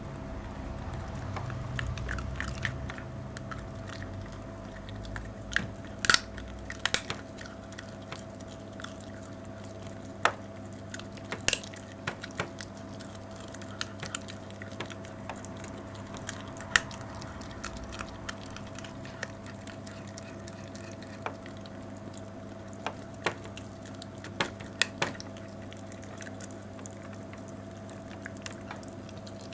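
Small dog chewing and gnawing a raw meaty bone, with scattered sharp crunches and clicks, over a steady low hum.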